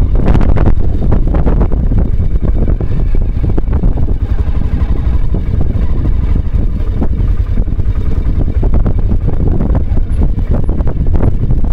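Aprilia Pegaso motorcycle's single-cylinder engine running steadily under way, with wind noise on the microphone.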